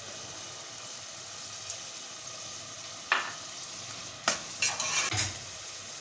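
Chicken curry sizzling in an aluminium pot, with a ladle being stirred through it. The ladle knocks against the pot once a little after three seconds in and again just after four seconds, then scrapes and clatters around the pot for about half a second near five seconds.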